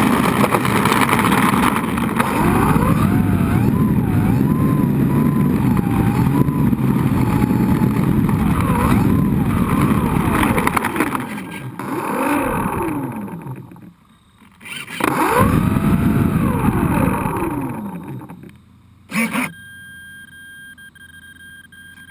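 Model airplane's motor and propeller running on the ground, its pitch swinging up and down with the throttle, dropping away, then rising once more before spinning down to a stop. A short click follows near the end, then a faint steady high tone.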